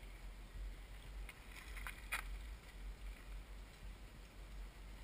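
Low, steady rumble of wind on the microphone, with a few faint sharp clicks about two seconds in.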